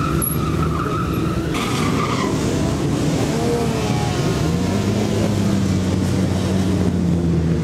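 Loud vehicle engines running amid tire squeal and skidding. Some way past the middle, one engine revs up and then holds a steady higher note.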